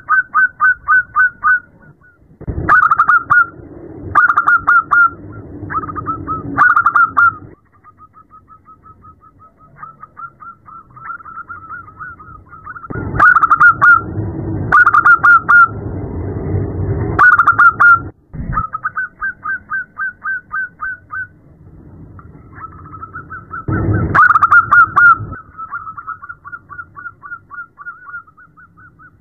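Zebra doves calling in rapid staccato trains of short notes, about seven a second, some loud and close and others faint. This is the female zebra dove's call that keepers play to set males calling. Under the loudest bouts runs a low noisy rumble.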